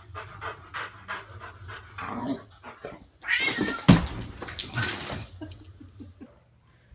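A cat yowling and hissing for about two seconds partway through, defending itself against a dog, with a heavy thump in the middle of it. Light scattered knocks come before.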